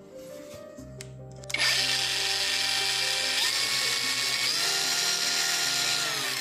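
Parkside PWSAP 20-Li D4 cordless brushless angle grinder switched on about a second and a half in, running on its repaired controller. Its motor whine steps up in pitch twice, then falls near the end as the speed setting changes.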